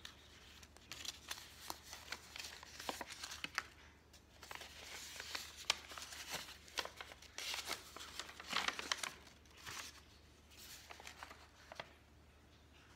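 Sheets of printer paper rustling and crinkling as they are handled and unfolded, a long run of crackly rustles with sharp little snaps that eases off near the end.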